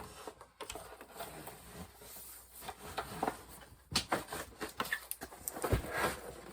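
Ceiling fan blades being handled: scattered clicks, knocks and rustling, with a cluster of sharper knocks about four seconds in.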